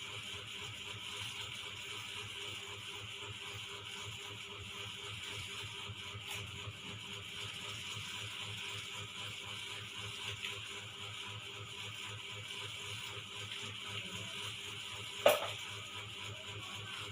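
Steady mechanical whirring with a fast, regular low throb, about four pulses a second, and one sharp knock near the end.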